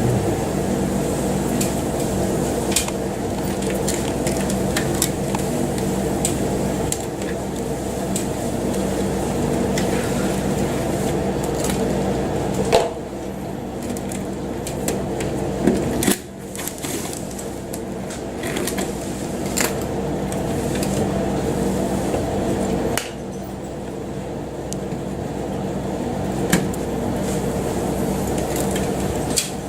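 Steady mechanical motor hum with scattered light clicks and knocks; it drops abruptly about sixteen seconds in and again about twenty-three seconds in.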